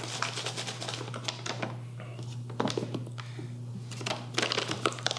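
Quick, irregular clicks and taps of a plastic scoop against the powder bag and shaker bottle as whey protein powder is scooped and tipped in, over a steady low hum.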